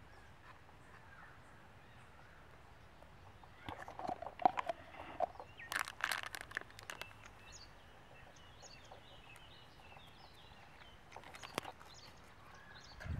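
Faint rural outdoor ambience with scattered short bird chirps. About four seconds in comes a brief run of clicks and rustles from hands handling things, with a few more near the end.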